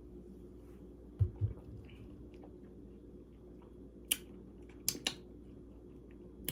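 Quiet mouth sounds from a person tasting a diet soda: two soft low thuds just over a second in, then a few sharp lip smacks or clicks near four and five seconds in.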